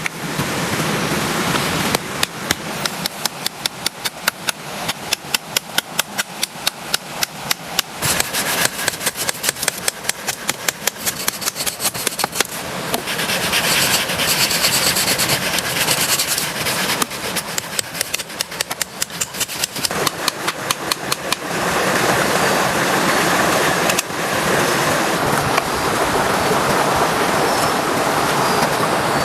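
Heavy rain falling, with rapid sharp drop taps, several a second, over the steady hiss of the downpour; the taps thin out and the hiss grows fuller near the end.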